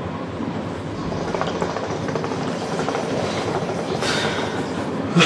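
Hookah (argileh) bubbling as smoke is drawn through its water-filled glass base: a steady, rapid gurgle.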